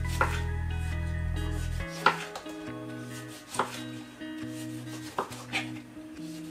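Kitchen knife cutting a tomato on a wooden chopping board: about five separate knocks of the blade on the board, roughly a second apart.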